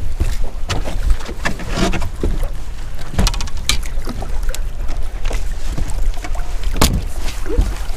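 Wind rumbling on the microphone aboard a bass boat in choppy water, with water slapping the hull and scattered short knocks.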